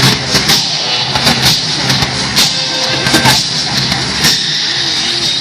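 Music from the projection show's soundtrack with sharp percussive hits at an irregular beat.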